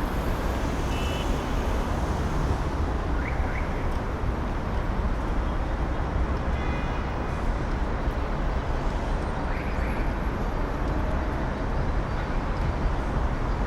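Busy city street ambience: a steady, dense rumble of road traffic, with a few faint, brief higher tones now and then.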